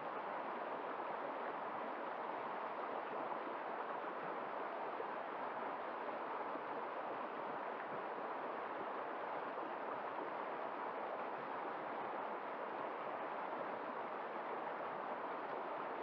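Shallow stream rushing over rocks and stones: a steady, even rush of water.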